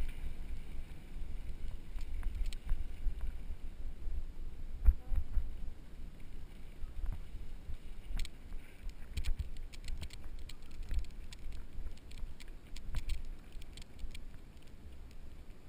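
Mountain bike ride heard through a GoPro's microphone: low wind buffeting on the mic with a heavier thump about five seconds in, and scattered clicks and rattles of the bike on the trail, thickest around the middle.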